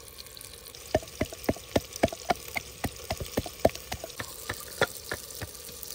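Ginger and garlic being pounded with a mortar and pestle: a run of quick, uneven strikes, roughly four a second, starting about a second in.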